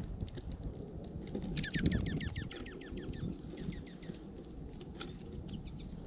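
A small songbird gives a rapid twittering run of downslurred chirps for about two seconds, starting about a second and a half in, then a few scattered chirps. Low wind rumble on the microphone and light taps run underneath.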